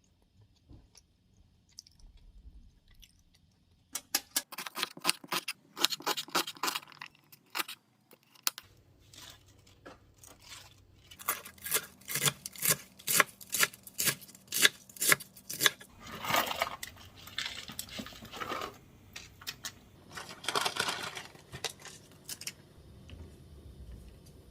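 Runs of sharp clicks and taps, several a second, with two longer scraping swishes near the end.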